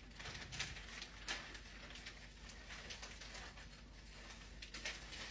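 Faint, irregular light clicks and rustling from a pet bird cage, as of ringneck parakeets moving about on the bars and perches.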